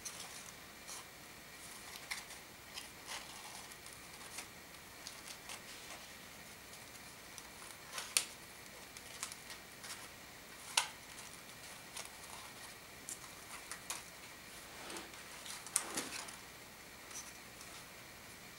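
Folded origami paper units of a modular kusudama rustling and crinkling as they are turned in the hands and tucked together. Scattered soft crackles, with a few sharper paper clicks.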